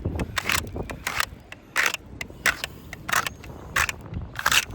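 Soft bristle brush swept back and forth over asphalt roof shingles in about eight quick, even strokes, a brush test on a test square for granule loss; the older roof sheds a little granule under the brush.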